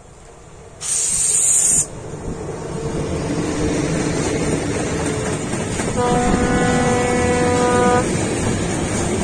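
Czech Railways class 163 electric locomotive hauling a long freight train of open wagons past at speed: a steady rumble and rush of wheels on rail, with a sudden loud blast of rushing noise about a second in as the locomotive goes by. About six seconds in, a train horn sounds one steady note for about two seconds.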